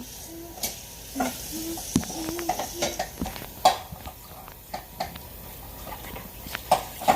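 A utensil stirring a sticky edible slime mixture in a bowl, with irregular clicks and knocks against the bowl, while a voice hums short "dun" notes in the first few seconds.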